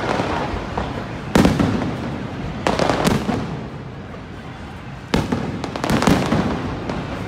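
Aerial firework shells bursting: about five sharp bangs, each trailing off in a rumbling echo.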